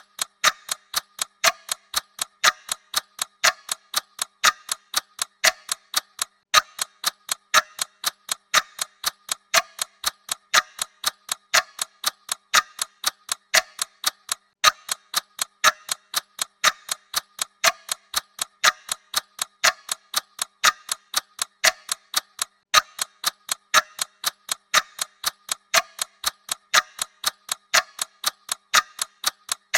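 Clock ticking sound effect: a mechanical clock ticking steadily with quick, evenly spaced ticks.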